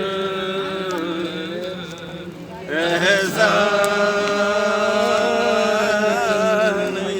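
A solo voice sings long drawn-out wordless notes of an Urdu love song, with a steady low drone underneath. The voice drops away about two seconds in, then returns stronger and holds one wavering note almost to the end.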